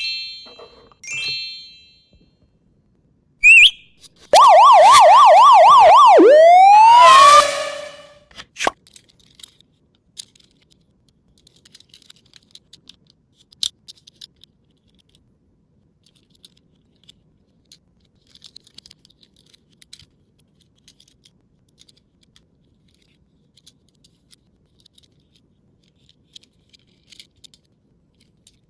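Police siren sound effect: a loud, fast up-and-down yelp, about four cycles a second, for roughly three seconds, ending in a rising wail. It is preceded by short chirpy cartoon-style blips and followed by faint scattered clicks.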